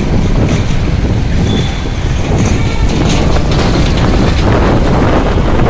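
Loud, steady wind rumble on the microphone over road traffic noise, as the camera moves along the street.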